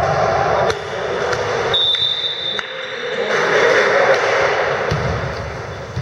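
Reverberant sports-hall noise during a pause in volleyball play: a blur of players moving and talking in the echoing gym, with a brief high steady tone about two seconds in.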